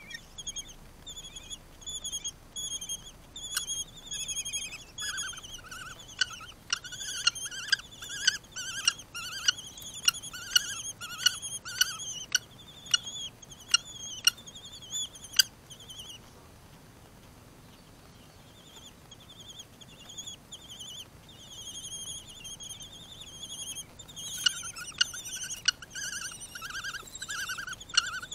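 Common kestrel chicks calling with rapid series of short, high-pitched repeated notes, typical begging while the adult is at the nest, broken by a pause of about three seconds past the middle. Sharp clicks are scattered through the first half.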